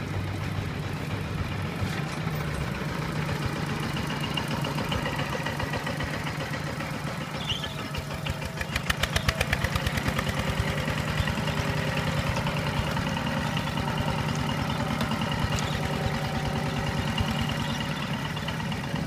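Single-cylinder diesel engine of a two-wheel walking tractor, running steadily as it pulls its trailer through the rice stubble. A little before halfway it beats louder and more distinctly for about two seconds.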